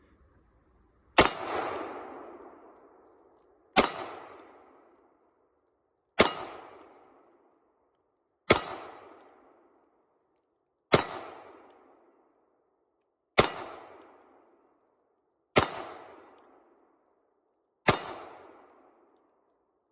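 Eight single shots from a 1943 Walther P38 9mm pistol, fired slowly at a steady pace of about one every two and a half seconds, each followed by an echo that fades over a second or so.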